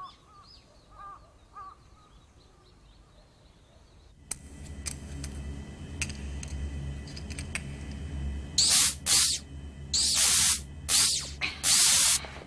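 Crows cawing a few times over a quiet background. Then a steady low machine hum with sharp clicks, and from about two-thirds of the way through, several loud bursts of hiss from the repair machinery.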